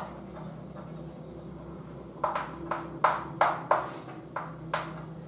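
Chalk writing on a blackboard: a run of about eight short scratching strokes, starting about two seconds in, as a word is written.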